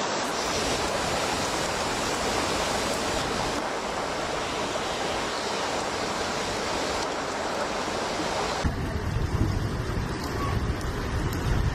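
Heavy torrential rain pouring down in a steady, even hiss. About nine seconds in it cuts abruptly to a rougher noise with more low rumble.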